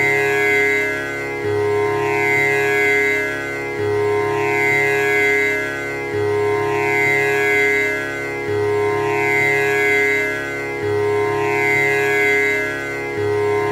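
Tanpura drone: the plucked strings repeat in an even cycle about every two and a half seconds. Each low pluck is followed by a swelling shimmer of overtones over a constant held pitch.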